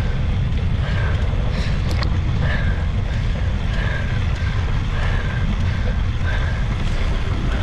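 Wind rumbling steadily on the microphone, with faint short high notes repeating about once a second and a brief click about two seconds in.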